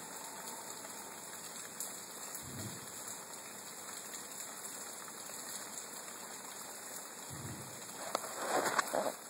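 Steady rain falling, with two short low thumps, one about two and a half seconds in and another about seven seconds in. A louder burst of noise comes near the end.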